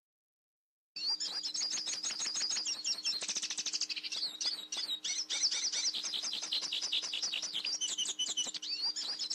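A bird chirping and trilling fast, many short high notes strung into run-on phrases, starting about a second in over a faint steady low hum.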